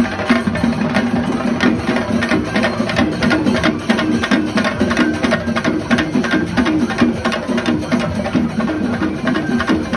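A group of chenda drummers beating their cylindrical Kerala temple drums with sticks: a loud, dense, fast rhythm of many strokes a second that runs on without a break.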